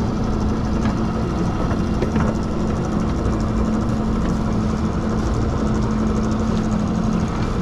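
Small fishing boat's engine running steadily with a low hum, under a wash of noise.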